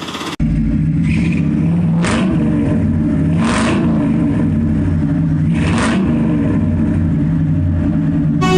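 A vehicle engine running steadily at a low, even pitch, with four short hissing bursts over it.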